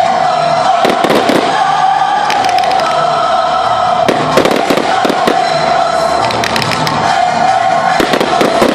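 Fireworks exploding in clusters of bangs and crackles, about a second in, around the middle and near the end, over a steady background of music.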